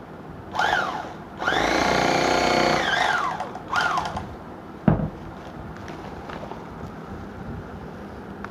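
A handheld Wazir portable bag closer sewing machine runs in three bursts: a short one, then about two seconds of stitching through a woven sack, then another short one. Each time its motor whine rises on start and falls as it stops. A sharp knock comes about five seconds in, followed by quieter handling noise.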